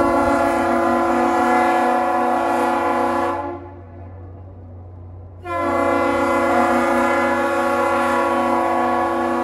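Great Lakes freighter John G. Munson's horn sounding two long blasts of about three and a half to four seconds each, about two seconds apart, part of a master salute. A steady low hum runs underneath.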